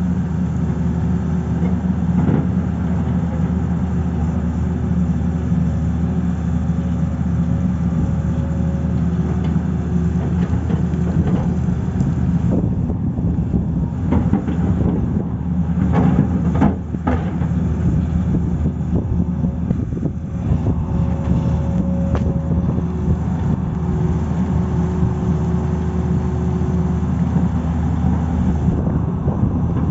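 Tata Hitachi crawler excavator's diesel engine running steadily under digging load, with a few sharp knocks about halfway through.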